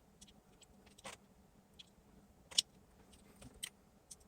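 A few faint, scattered clicks and taps of a chip and circuit board being handled, the loudest about two and a half seconds in.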